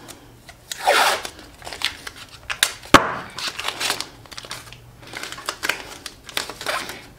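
Blue painter's tape being pulled off the roll, torn and pressed onto a sock, rustling and crinkling in several irregular bursts. A single sharp knock about three seconds in, as the tape roll is set down on the table.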